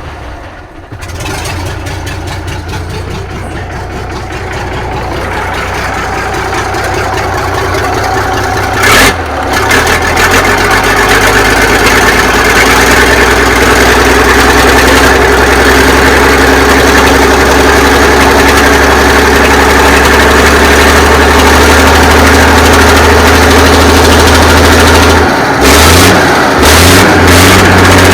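The 1983 Kenworth K100 cabover's diesel engine struggling to start from cold. It cranks and fires unevenly, catches about nine seconds in, and then runs loud and steady, with a few brief changes near the end.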